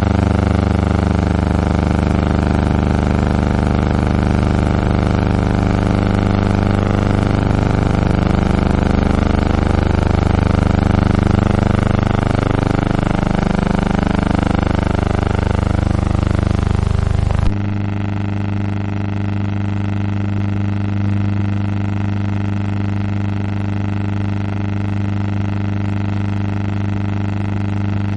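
Steady droning hum with many even overtones, no speech. About 17 seconds in it changes abruptly to a quieter, duller hum.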